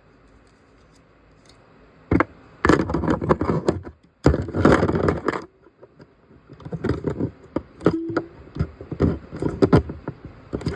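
Hands working on a plastic battery compartment, removing and fitting metal battery contacts: scraping, clicking and knocks starting about two seconds in, with two long stretches of dense scraping and then scattered clicks.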